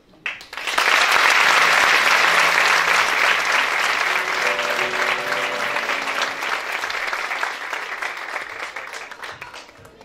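Audience applauding, the clapping starting about half a second in, loudest early and dying away toward the end, with quiet music underneath.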